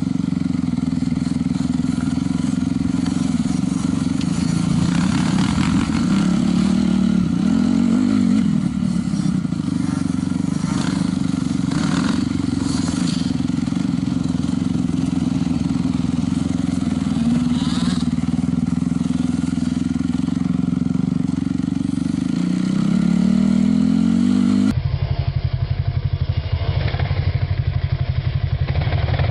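Dirt bike engine running at low speed close to the microphone, its revs rising briefly a couple of times. About 25 seconds in the sound changes abruptly to a lower, choppier engine note.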